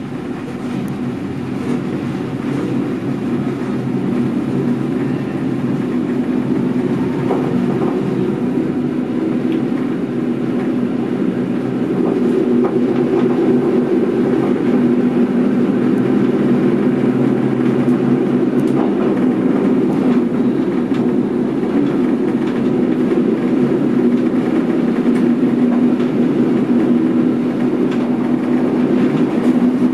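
Running noise of an NS Mat '64 electric multiple unit heard inside the driver's cab: wheels on rails with a steady drone from the traction motors. It grows louder over the first dozen seconds and then holds steady, with a few light clicks from the track.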